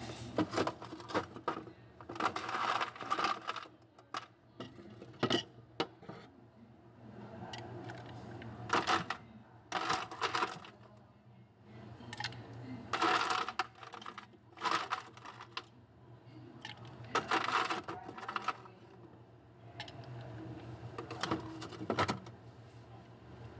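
Ice cubes clattering and clinking as they are worked out of a freezer ice tray and scooped with a metal spoon into a mug. The clatter comes in repeated rattling bursts a few seconds apart, over a steady low hum.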